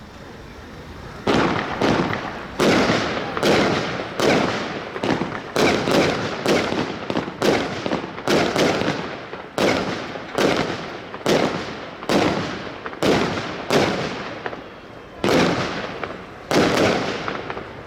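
Zena Donnerblitz firework battery firing a quick string of about twenty loud bangs, roughly three every two seconds, each ringing out briefly. It starts about a second in and has a short pause before the last two bangs.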